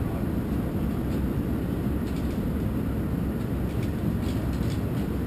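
Steady low rumble of airport terminal ambience, with faint intermittent rattling clicks from luggage trolleys being pushed across a tiled floor.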